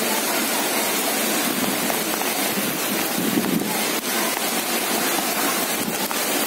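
Heavy rain pouring down steadily onto a street, a constant even hiss.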